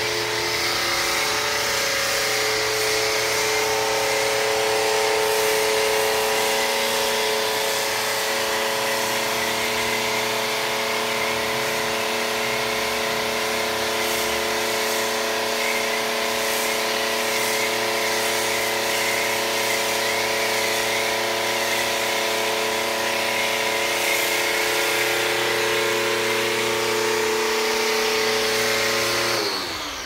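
Compact WAP Ágil electric pressure washer running steadily under load, driving a snow foam lance, with the hiss of foam spraying out. Near the end the motor stops and its hum falls in pitch as it winds down.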